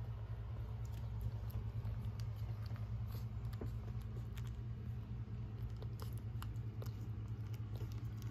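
Newborn French bulldog puppies squirming in a whelping box, making faint scattered clicks, smacks and rustles over a steady low hum.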